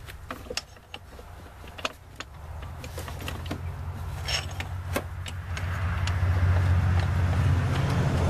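A low motor hum that builds up over several seconds and is loudest near the end, with scattered light clicks and clinks of metal parts being handled.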